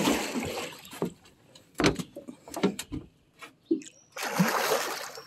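Water splashing twice as a big catfish hooked on a trotline thrashes at the surface beside the boat, with scattered sharp knocks in between.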